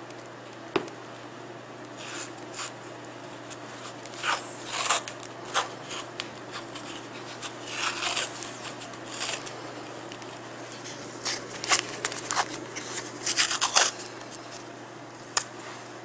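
Adhesive bandage tape being pulled off the roll and wrapped around a splint on a cat's front leg: irregular short rasping rips and rustles, with a sharp click about a second in.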